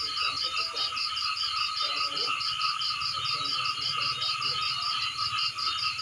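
Dense chorus of frogs calling from a rice field, several callers layered into a continuous din, with one high call pulsing about six times a second over a steadier lower drone.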